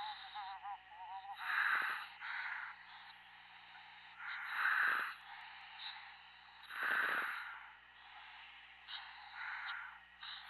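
Commercial diver breathing through his helmet over the dive radio, a rush of breath with demand-valve hiss about every two to three seconds, four in all, over a steady comms hum.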